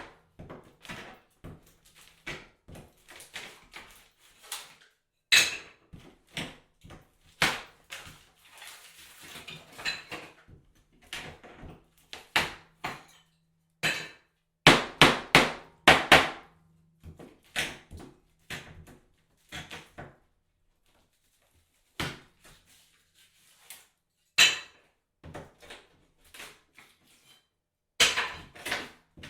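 Bathroom tiles and drywall being knocked down: irregular hammer blows and sharp cracks, some much louder than others, with debris crumbling and scraping between the blows. There is a short lull about two-thirds of the way through.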